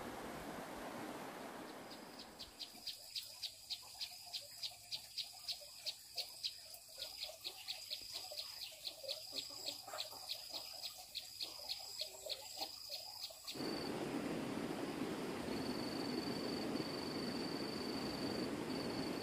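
Outdoor ambience with a high-pitched chirping call repeated about three times a second for some ten seconds. It then changes abruptly to a steady hiss with a continuous high trill.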